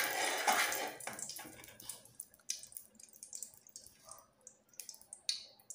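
Lard melting in a hot aluminium pot on a gas burner: a soft sizzle that fades over the first second or so, then scattered small crackles and pops as the fat heats.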